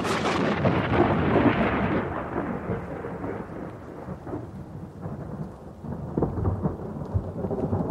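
Thunder: a sudden loud crack that fades over a couple of seconds into a long, uneven rolling rumble.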